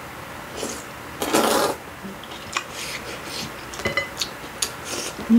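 A long, loud slurp of hot kimchi noodles about a second in, then a series of light clicks and taps of chopsticks against the ceramic noodle bowl.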